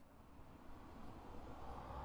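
Faint steady hiss with a low hum underneath: the background noise of the recording between calls, with no meow in it.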